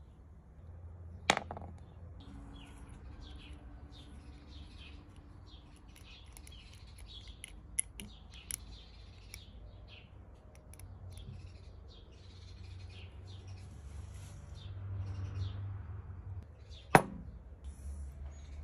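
Small birds chirping intermittently in the background, with two sharp clicks about a second in and near the end as small brass kerosene-stove burner parts are handled and fitted together.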